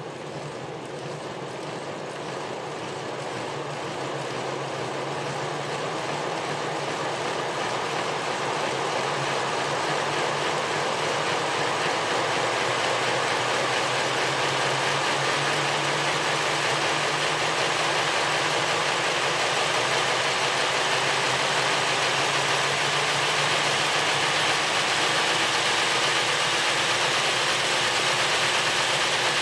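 Bachmann K-27 large-scale model steam locomotive running on a roller stand: the electric motor and gearbox whir while the drivers spin on the rollers. The sound grows louder over the first ten seconds as the locomotive speeds up, then holds steady.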